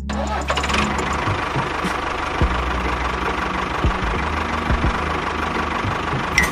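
A small motor running steadily, with a low hum and a faint steady whine.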